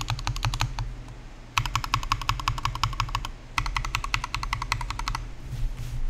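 Glorious GMMK mechanical keyboard fitted with lubed Tangerine linear switches being typed on fast, several keystrokes a second, in three quick runs with short pauses between them; the typing stops about a second before the end.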